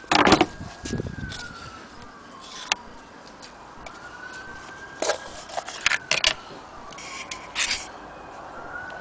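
A distant siren slowly wailing up and down, about two full rises and falls, under scattered clicks and knocks from the machine being handled. The loudest is a knock right at the start.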